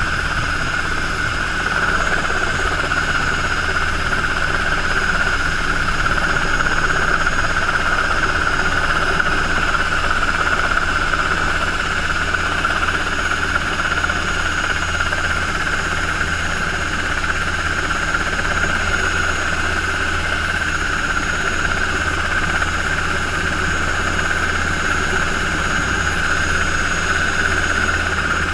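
Helicycle single-seat helicopter with its small gas-turbine engine running, a steady high whine over a constant low rumble from the engine and rotor.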